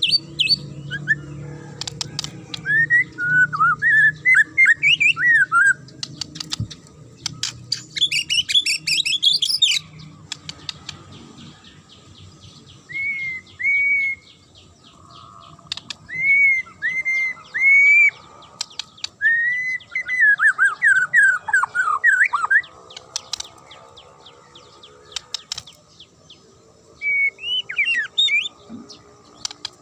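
White-rumped shama (murai batu) singing in separate phrases with short pauses: loud whistled notes, bursts of sharp rapid clicking notes, and a run of quick falling notes.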